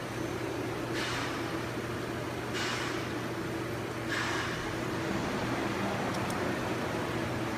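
Steady workshop background hum with even hiss, broken by three short bursts of hiss about a second, two and a half, and four seconds in.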